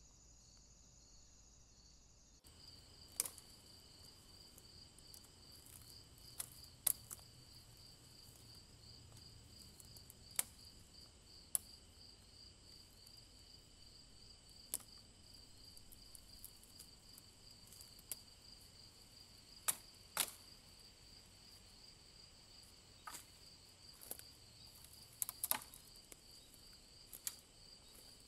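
Night insects such as crickets trilling steadily in a high, pulsing chorus. Scattered sharp ticks, about one every one to two seconds, come and go irregularly on top.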